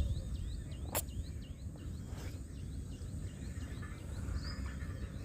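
Outdoor background with a small animal's high, short falling chirp repeated about three times a second, stopping near the end, over a low steady rumble. A single sharp click about a second in.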